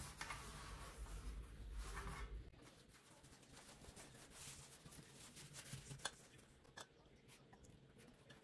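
Faint rustling of thin phyllo sheets being laid into a metal baking tray and brushed with butter, with a few light taps.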